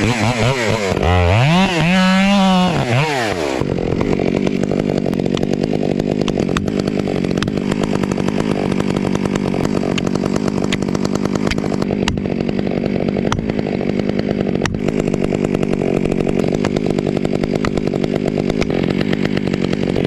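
Gas chainsaw revving up and down for the first few seconds, then running steadily at high throttle while cutting into the trunk of a large maple being felled.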